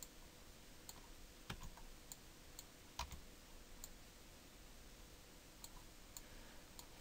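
Scattered faint clicks of computer keys and a mouse over near-silent room tone.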